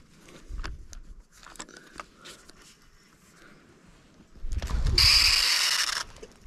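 Baitcasting reel's spool spinning out line during a cast: a loud, high whir lasting about a second near the end that stops abruptly, after a few seconds of light handling clicks.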